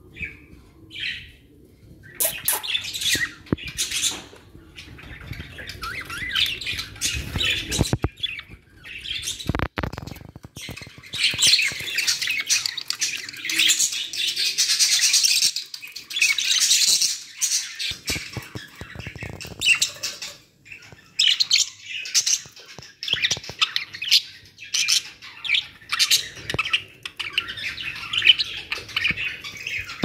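Several budgerigars chattering and chirping in a quick, broken stream, busiest around the middle.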